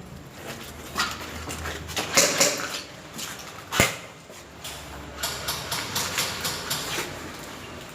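A series of irregular sharp clicks and knocks, with the strongest single crack a little before the middle and a run of lighter clicks in the second half.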